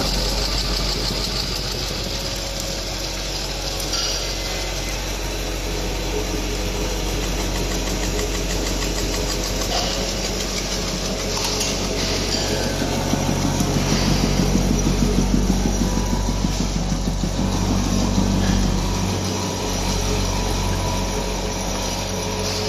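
Automatic flour packing machine and its screw-conveyor feeder running: a steady mechanical hum with a low drone. About halfway through it pulses rapidly, about four or five beats a second.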